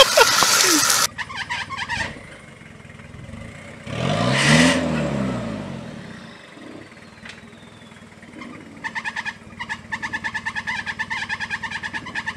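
Off-road vehicle engines under load: about the first second is loud revving from a pickup truck spinning its wheels, cut off abruptly. Then a Toyota 4x4's engine labouring up a steep rocky slope, with a sharp rise and fall in revs about four seconds in and a fast, even engine pulsing in the last few seconds.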